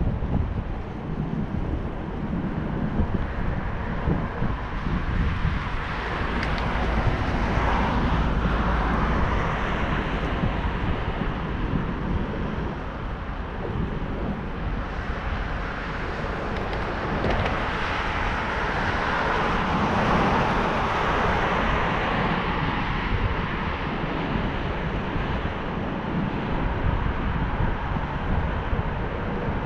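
Wind noise on the microphone of a moving bicycle: a steady rushing that swells and eases a couple of times.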